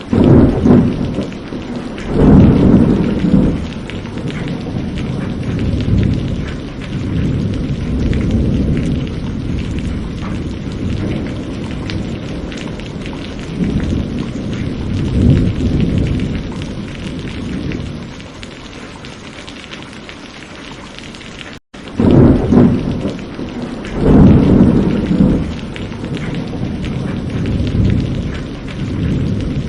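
Steady rain with repeated low rolls of thunder, strongest near the start, at about the middle and again about three quarters through. The sound cuts out for an instant about two-thirds of the way in.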